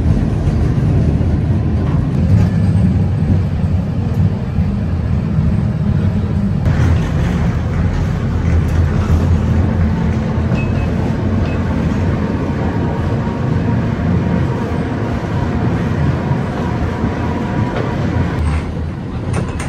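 Historic electric tram running along its rails: a steady rumble of the moving car.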